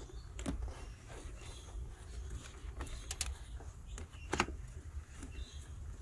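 Scattered light clicks, taps and rustling as an electrical cable is pushed and tucked under plastic interior trim and carpet by hand, with a sharper click a little over four seconds in. A low rumble sits underneath.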